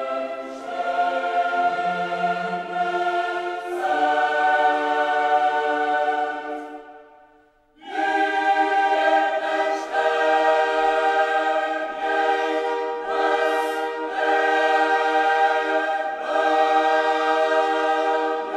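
A choir singing long held chords. The music fades out about seven seconds in and comes back on a new chord a moment later.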